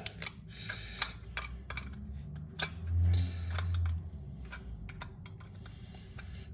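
Irregular light clicks and crinkles of thin aluminium can pieces being handled and worked with multitool pliers. A brief low rumble about three seconds in is the loudest part.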